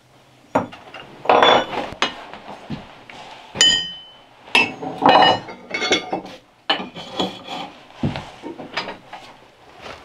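About ten irregular hammer blows on wood and metal, a few giving a brief metallic ring: an axe handle being driven into a felling axe head.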